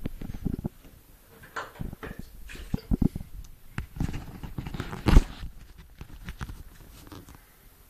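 Kittens scrambling after a ping pong ball in a bathtub: irregular thumps and knocks with the scrabble of paws on the tub, the loudest thump about five seconds in.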